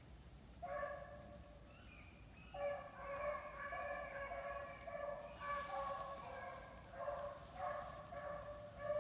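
A pack of beagles baying as they run a rabbit's scent trail, several drawn-out overlapping howls. The first voice starts about half a second in, and from about two and a half seconds on the voices run almost without a break.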